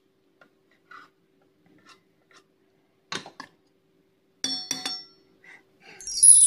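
Metal spoon clinking against metal over a stainless steel pot: a few faint ticks, a knock about three seconds in, then two or three sharp ringing clinks about four and a half seconds in. Near the end a loud, bright shimmering chime begins.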